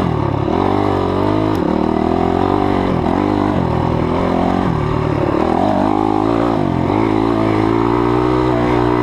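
Honda CRF250X dirt bike's four-stroke single-cylinder engine under way, its pitch rising and dropping back several times as the rider works the throttle.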